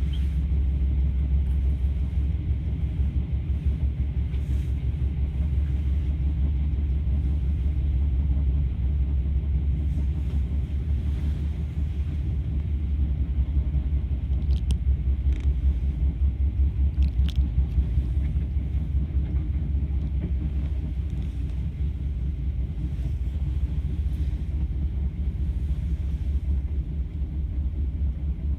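Steady low rumble of the XPT passenger train running along the track, heard inside the carriage, with a few brief faint high squeaks around the middle.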